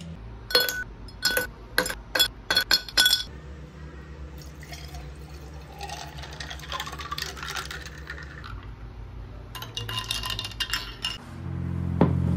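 A quick run of sharp glass clinks, then coffee poured into a tall glass jar, the pouring sound rising in pitch as the glass fills. A second cluster of clinks follows.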